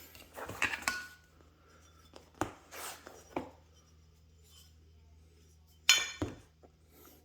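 Metal positioning squares being handled and set down, giving a scattered series of knocks and clinks. The loudest comes about six seconds in, with a short metallic ring.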